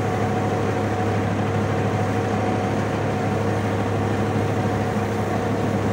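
Metal-Fach T659 feed mixer-wagon running at steady speed, churning and chopping hay in its tub: a steady machine drone with a constant hum that does not change.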